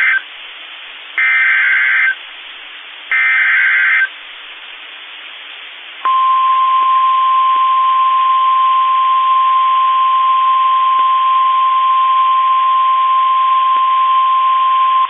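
NOAA Weather Radio warning alert over a radio receiver: three loud, screechy SAME digital header bursts about two seconds apart. About six seconds in, the steady 1050 Hz warning alarm tone begins and holds for about nine seconds, signalling that a warning message follows.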